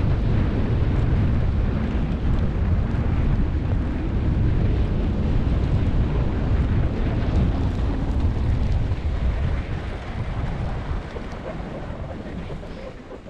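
Wind buffeting a camera microphone during a ski run, a heavy low rumble with snow hiss, easing off over the last few seconds.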